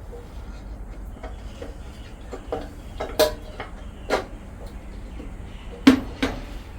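Scattered sharp clicks and knocks of parts and tools being handled during hand reassembly of a scooter's CVT casing, the loudest about three, four and six seconds in.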